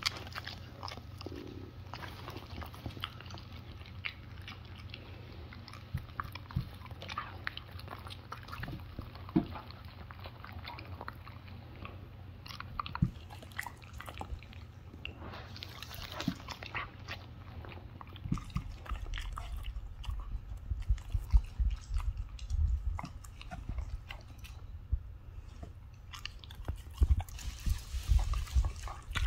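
A Samoyed and Shiba Inus chewing and biting pieces of shredded cooked chicken, with many short wet mouth clicks and crunches that come thicker and louder in the second half, over a steady low hum.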